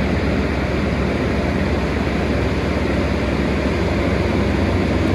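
Steady vehicle noise: a continuous low rumble under an even hiss, with no breaks or changes.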